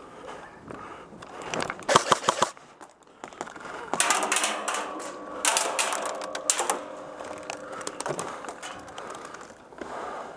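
Paintball markers firing rapid strings of shots: a short burst about two seconds in, then longer runs of fast popping from about four to seven seconds in.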